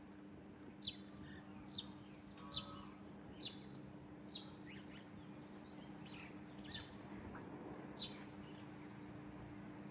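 A bird calling with short, sharp notes that slide steeply down in pitch, about one a second at first and then two more spaced further apart. A steady low hum runs underneath.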